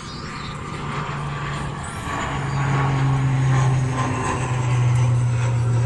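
An engine running steadily with a low, even hum that grows louder about two seconds in.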